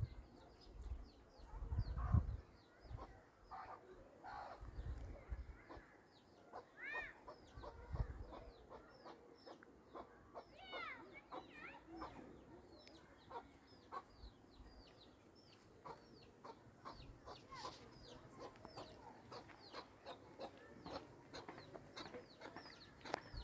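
Farmyard chickens clucking, with many quick high chirps throughout and a few dull low thumps in the first eight seconds.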